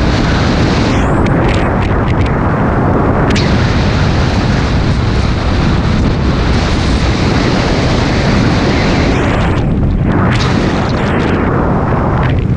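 Wind buffeting the microphone of a camera in a moving car, a loud constant rumble. A few short knocks come about one to three seconds in and again near the end.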